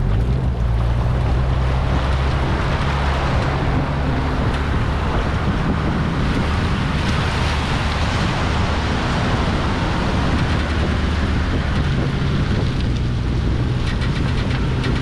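Tow vehicle's engine running steadily as it hauls an empty boat trailer out of the shallows and up the sand, with wind blowing across the microphone and water washing around the trailer.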